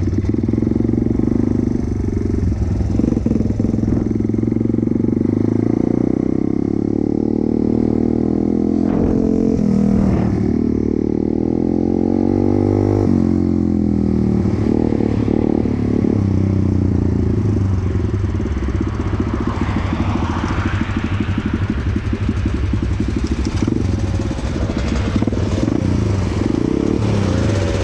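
Small single-cylinder four-stroke pit bike engine running under way, its pitch rising and falling with the throttle.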